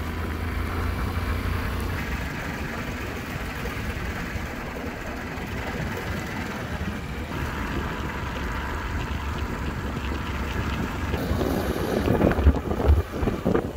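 A vehicle running along a road with wind noise on the microphone. Near the end the sound grows louder and more uneven as a motorcycle comes up close.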